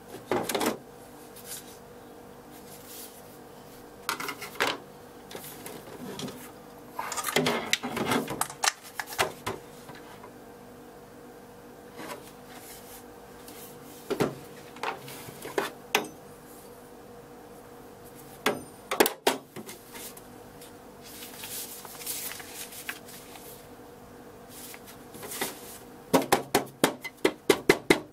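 Handling noise from unpacking a Makita MakPac plastic tool case: scattered knocks, clacks and rustles as the circular saw is lifted out and the papers and plastic insert are moved, with a quick run of clicks and knocks near the end.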